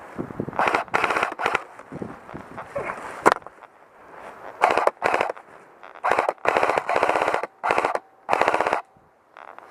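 Airsoft guns firing several short bursts of rapid automatic fire, each burst a fast even rattle of shots lasting under a second, with brief pauses between bursts.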